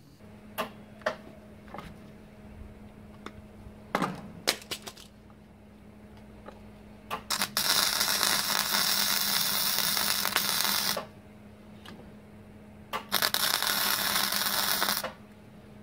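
Electric arc welding on a steel muffler: two runs of loud, crackling hiss, the first about three and a half seconds long starting midway, the second about two seconds near the end. Under them is a steady low hum, with a few sharp clicks in the first few seconds.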